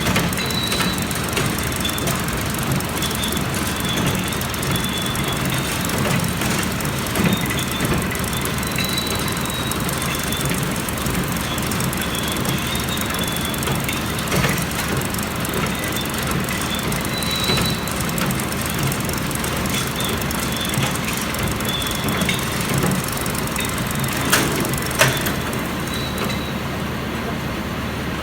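Allis-Chalmers Roto-Baler running through a baling cycle: steady mechanical running noise with repeated short high-pitched squeals and a couple of sharp knocks near the end.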